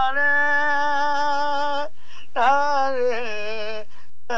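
A man singing long held notes in a classical-style vocal demonstration, in two phrases with a short break about two seconds in and a third phrase starting near the end.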